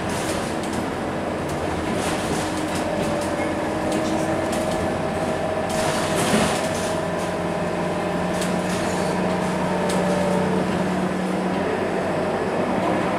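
Scania K230UB city bus's diesel engine and drivetrain, heard from inside the passenger cabin while the bus drives along, with steady whining tones and light interior rattles. A brief louder rush comes about halfway through.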